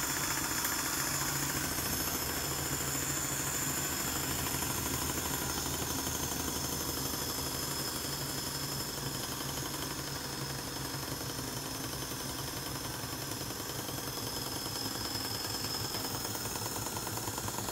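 Stuart 10V single-cylinder vertical steam engine running steadily under steam, a fast even beat with a steady high hiss above it.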